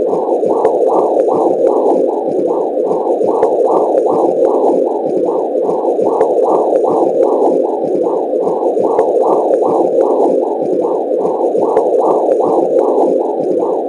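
Womb sound effect: a steady, muffled whooshing noise with a pulsing whoosh about twice a second, the blood-flow rhythm as heard from inside the womb.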